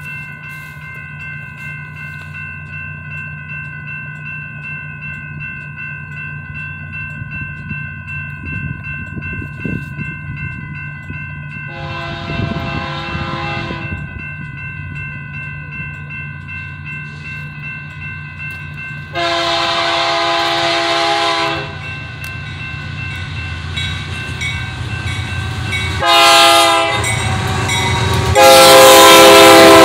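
Approaching diesel freight train sounding its multi-chime air horn in the grade-crossing pattern: long, long, short, long, each blast louder than the one before, the last the loudest. Under the horn runs the steady, growing rumble of the locomotives.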